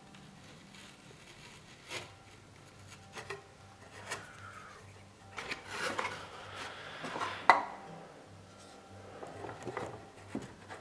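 Wooden model-boat parts being handled and fitted by hand: scattered light taps and clicks of wood on wood, a stretch of rubbing and scraping around the middle, and one sharper knock about two-thirds of the way in.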